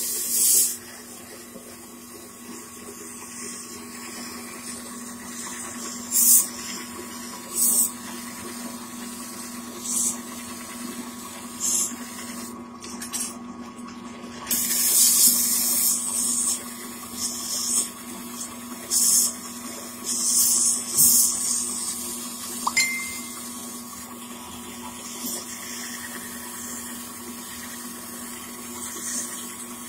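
Polishing machine's motor humming steadily while a flat stone is pressed against the spinning bull wheel, giving repeated hissing scrapes that each last a second or two.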